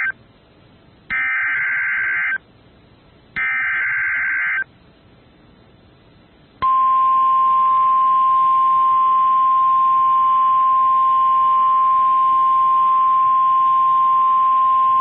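Emergency Alert System SAME header: two bursts of screechy digital data tones about a second long, one after the other. After a short pause, a single steady high alert tone, the weather radio's 1050 Hz warning alarm tone, starts about six and a half seconds in and holds. Together they signal that a new severe thunderstorm warning is about to be broadcast.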